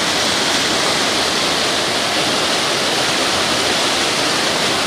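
Muddy floodwater rushing and churning past an earthen bank: a steady, loud rush of water.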